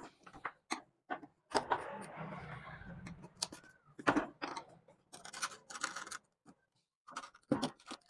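Screwdriver working the screws out of the front cover of an instant gas water heater: a run of small metal clicks and scrapes, with a longer stretch of scraping about one and a half to three seconds in.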